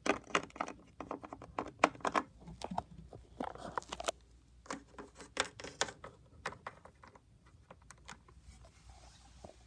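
Quick, irregular plastic clicks and taps as a small toy dog figurine is hopped and set down on a hard surface, closely spaced for the first four seconds and then thinning out.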